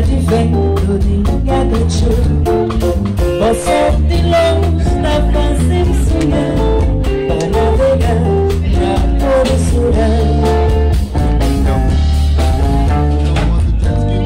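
Live band playing: a woman singing into a microphone over electric bass guitar, acoustic guitar and hand percussion, with a steady beat and a strong bass line.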